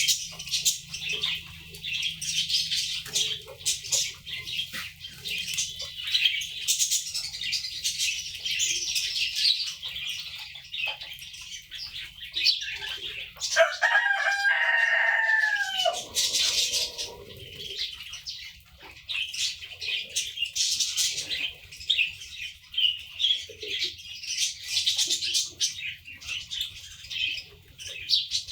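Many small cage birds chirp and chatter without a break. About halfway through, a rooster crows once, a call of about two seconds that falls in pitch at the end.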